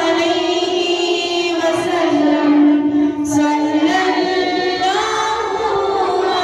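A young female voice singing a naat, a devotional song, with long held notes and slow gliding changes of pitch.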